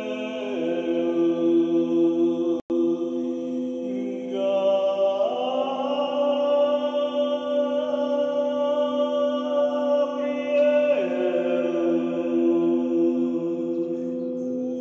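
A voice chants long held notes over a steady singing-bowl drone, as in a crystal singing bowl played with a mallet. The chanted note rises about five seconds in and falls back about eleven seconds in. The sound cuts out for an instant about two and a half seconds in.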